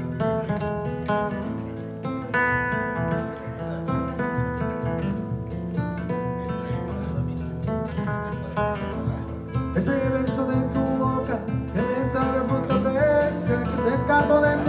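Live acoustic guitar ensemble, several nylon-string guitars playing a Latin-style piece: plucked melody notes over chords. From about ten seconds in the music grows fuller and brighter, and a singing voice comes in.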